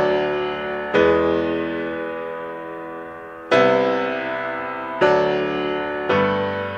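Background music of slow sustained chords. A new chord is struck about every one to two seconds, five in all, and each is left to fade.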